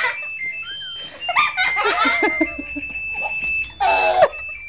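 Car alarm sounding a sequence of steady electronic tones that jump from pitch to pitch, with a baby giggling and laughing over it, loudest about four seconds in.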